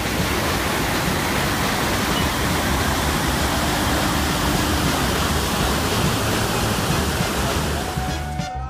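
Waterfall on a river in spate: a steady, loud rush of falling water with a low rumble under it, easing slightly near the end.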